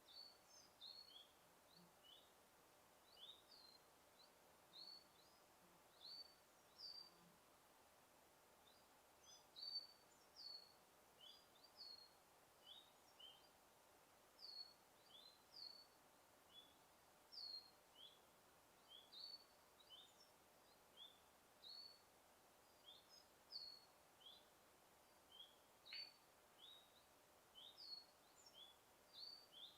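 Small birds chirping: a steady string of short, high, falling chirps, one or two a second, faint over a light background hiss.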